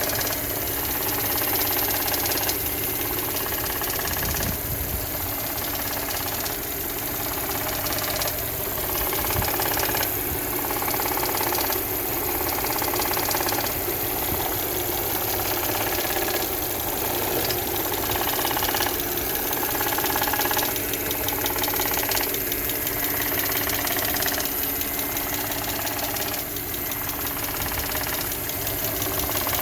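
2011 Audi S4's supercharged 3.0 V6 idling steadily, with an intermittent ticking from somewhere on the engine. The owner can't pinpoint it, and some suggest the intake manifold flaps.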